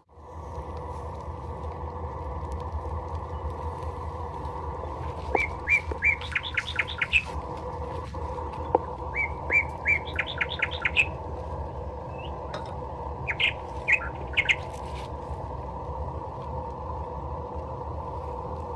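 A bird singing a short phrase of quick chirps, a few notes followed by a faster, higher run, three times several seconds apart, over a steady low background hum.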